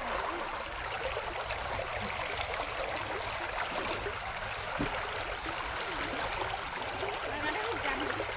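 Steady rushing of flowing river water, even and unbroken, with faint voices in the background.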